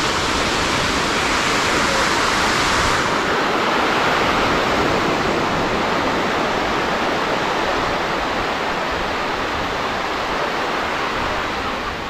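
Steady, loud rush of moving water.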